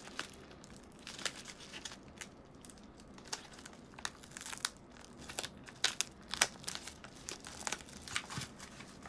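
A yellow mailer envelope being torn open by hand: paper crinkling and rustling, with scattered sharp tearing crackles that come thicker in the second half.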